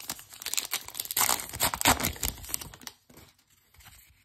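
Crimped wrapper of a Topps Allen & Ginter baseball card pack crinkling and tearing as it is ripped open by hand. The loudest part comes in the middle, and it dies away about three seconds in.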